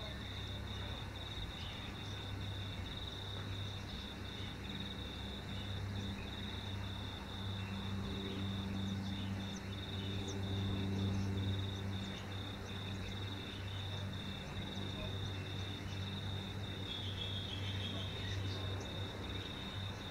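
Insects trill steadily in a high, fine pulsing tone. Under them runs the low drone of a twin-engine propeller aircraft overhead, growing louder about halfway through and then easing off.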